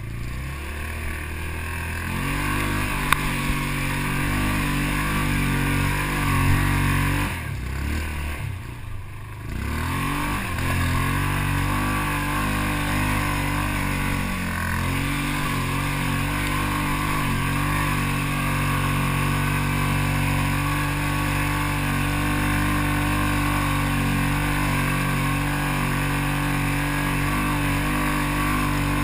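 Off-road ATV or UTV engine running steadily close to the microphone. About eight seconds in, the note drops away for a moment as the throttle eases, then it picks back up and holds steady.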